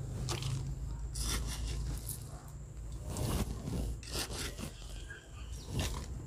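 Soil mix being scooped up and tipped into a grow bag around turmeric plants: a string of short scrapes and rustles.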